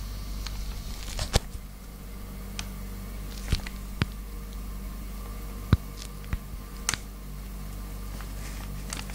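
Dwarf hamsters in a wire cage making about a dozen short, sharp clicks and ticks, scattered irregularly, over a steady low hum.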